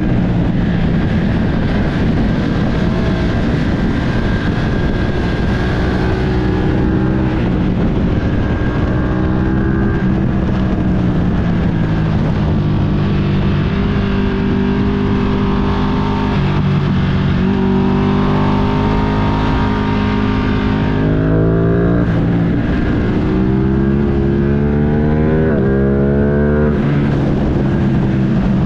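Ducati Streetfighter V2's V-twin engine under way with wind rushing past, cruising at a steady pitch and then twice accelerating hard, its note rising and dropping at each upshift.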